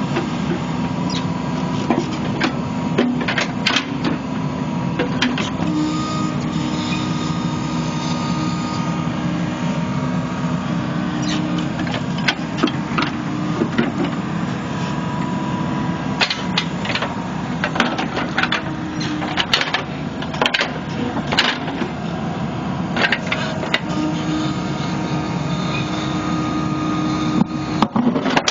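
New Holland Kobelco E80B midi excavator digging: its diesel engine runs steadily under load, with a whine that comes and goes as the boom and bucket move. Frequent sharp clanks and scrapes from the steel bucket working stony soil, more of them in the second half.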